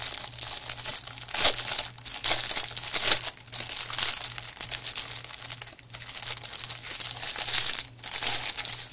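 Clear plastic packaging bag crinkling and rustling continuously as it is pulled open and handled around the rolled canvas inside.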